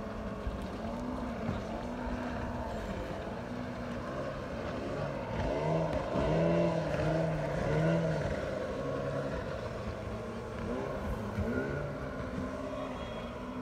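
Motorboat engine running at speed, its pitch rising and falling, loudest around the middle.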